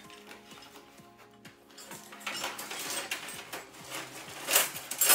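Background music with metal tools clinking and rattling in a tool chest drawer; the loudest clatter comes near the end.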